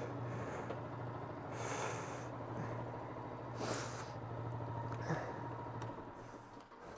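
Yamaha MT-125's single-cylinder engine idling with a steady low hum, stopping about six seconds in. Several loud breaths from the rider land on the helmet microphone over it.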